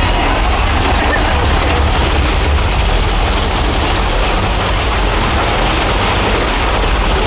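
Mine-train roller coaster cars running along the track: a steady, loud rumble of wheels on rails.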